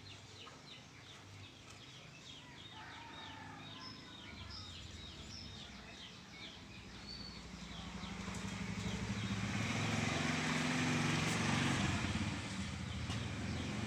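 Faint background bird calls and clucking, then from about eight seconds in a nearby engine running steadily and growing louder.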